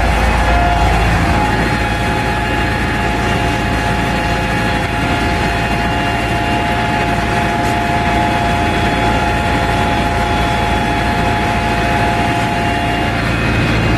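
IMT 558 tractor's diesel engine running steadily under load while pulling a plough, heard from inside the cab. A steady high whine runs over the engine and stops near the end.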